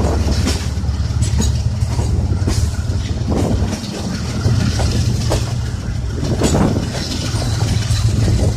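Train running past on the rails: a steady low rumble with irregular clanks of wheels striking the rail joints.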